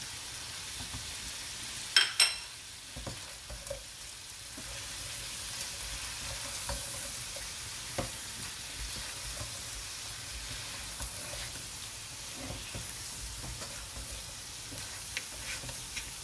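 Shrimp sizzling in melted butter and garlic in a pot, stirred and turned with a spatula, with soft scrapes and knocks. Two sharp clinks about two seconds in are the loudest sounds, as the spatula taps against the plate or pot.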